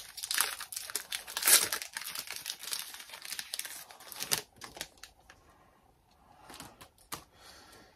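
Foil wrapper of a Pokémon card booster pack being torn open and crinkled. After about four and a half seconds it gives way to a few fainter clicks and taps.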